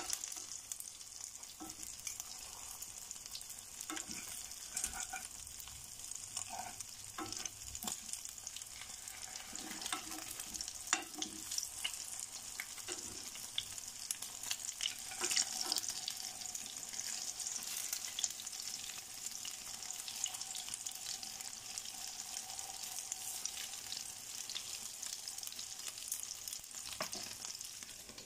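Kefir and cottage-cheese fritters sizzling steadily in hot vegetable oil in a frying pan, with scattered light taps and clicks of a fork against the pan as they are turned over.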